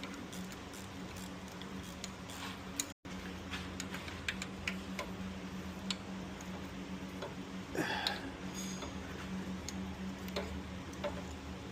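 Scattered light metallic clicks and ticks of hand tools at work on the engine's oil pan screws, over a steady low hum. The sound drops out briefly about three seconds in.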